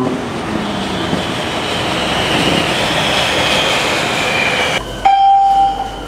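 BTS EMU-A2 SkyTrain running past on the elevated track: a steady rush of running noise with a thin high whine over it. Nearly five seconds in it cuts abruptly to a loud, steady high tone lasting about a second.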